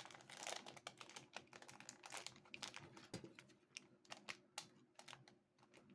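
Faint, irregular clicks and light crinkles of small toy packaging being handled and opened by hand, thinning out near the end.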